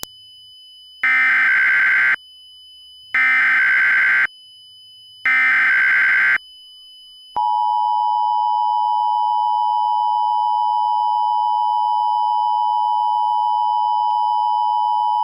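Emergency Alert System SAME header: three bursts of warbling data tones, each about a second long and two seconds apart, followed about seven seconds in by the EAS two-tone attention signal, a steady dual tone held for about eight seconds before cutting off.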